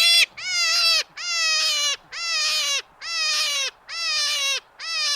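An animal calling over and over: seven evenly spaced, clear-pitched calls, each short and falling away at the end.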